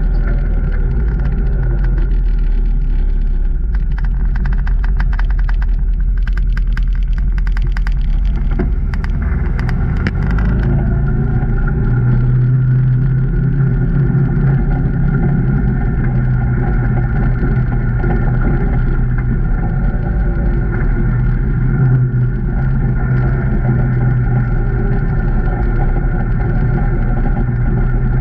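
Can-Am Maverick Trail 800 side-by-side's Rotax V-twin engine running steadily under way on a trail. A spell of rapid clicking and ticking comes between about four and ten seconds in, then the engine note rises and grows stronger.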